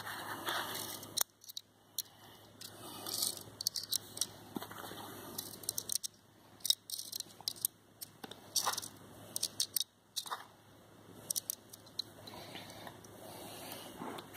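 A string of small, irregular clicks and handling rustle as .22 LR lead round-nose cartridges are loaded one by one into a Browning Buck Mark pistol magazine.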